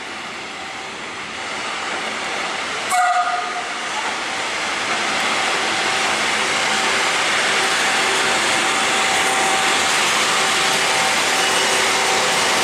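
Historic train approaching through the station. It gives a short horn blast about three seconds in, then the steady rumble and hiss of the train grows louder as it draws near.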